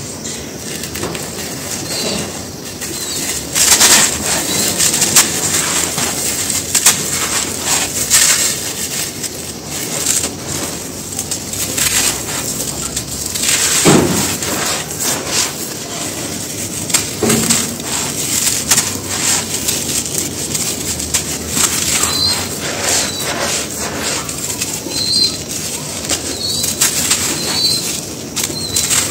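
Hands crunching, scooping and sifting dry, dusty grey powder and crumbly chunks: a steady gritty crackle and hiss of dust running through the fingers, with a few sharper crunches as pieces break.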